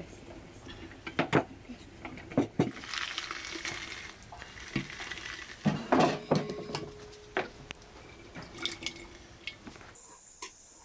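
Metal hand press and aluminium basin clinking and knocking as pomegranate seeds are scooped and pressed, with wet sounds of seeds and juice. There are several sharp clinks in the first seven seconds, and it grows quieter near the end.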